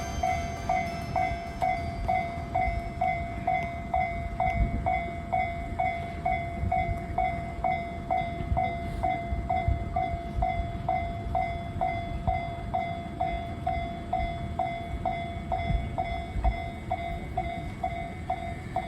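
Japanese railway level-crossing warning bell ringing its electronic "kan-kan" tone, about two strikes a second, over an uneven low rumble.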